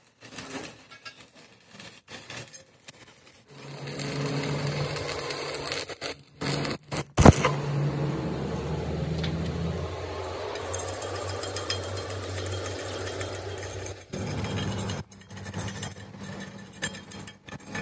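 Stick welding on a broken front axle beam: the electrode's arc crackles and sizzles steadily over a low hum, with one sharp click about halfway through. From about fourteen seconds in, the steady crackle gives way to rougher, broken sounds with some sharp taps, where a chipping hammer knocks slag off the weld.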